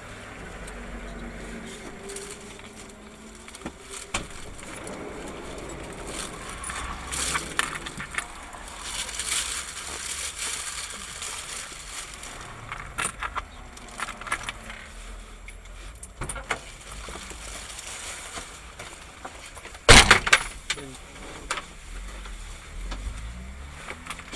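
Low in-car background with scattered small clicks and knocks, and one loud, sharp thud about twenty seconds in.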